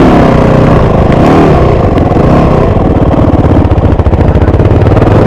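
Yamaha YZ250F four-stroke single-cylinder dirt bike engine running under the rider, revving up and down in the first second or so and then pulling more steadily.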